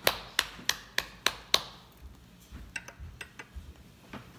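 A quick, even series of sharp taps, about three a second, with six in the first second and a half. A few fainter clicks follow a little past halfway.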